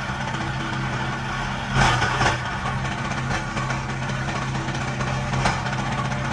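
Rubber crushing machine running with a steady low hum while shredded rubber granules pour from its chute. There are brief louder rushing surges about two seconds in and again near the end.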